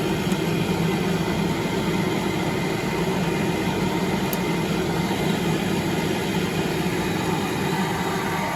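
Kyungdong Navien agricultural produce dryer running steadily: a low, even machine hum over a continuous rush of moving air.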